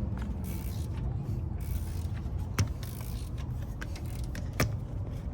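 Hand tools and parts being handled during an engine teardown: two sharp knocks about two seconds apart over a steady low rumble.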